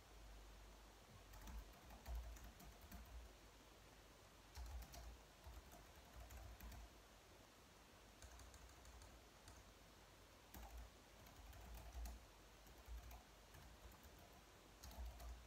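Typing on a slim white low-profile keyboard: faint key clicks in short irregular bursts with brief pauses between them.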